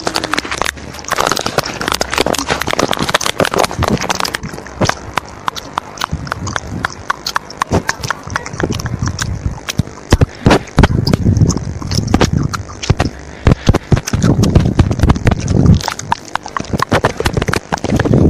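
Rapid, irregular clicking and knocking.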